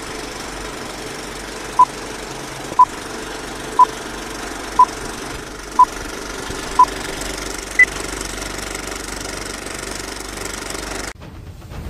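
Old film-projector clatter under a countdown-leader beep: a short pure beep once a second, six times, then one single higher beep. The projector clatter cuts off suddenly near the end.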